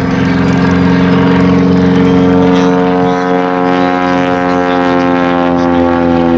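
Great Lakes biplane's inverted Ranger engine and propeller droning steadily in aerobatic flight, the pitch sliding slowly lower from about halfway through.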